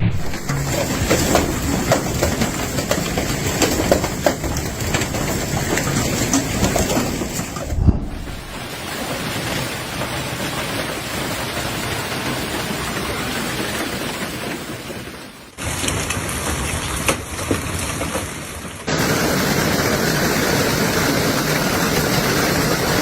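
Heavy storm downpour across several short clips: a dense steady rush of rain, with scattered sharp knocks through the first few seconds.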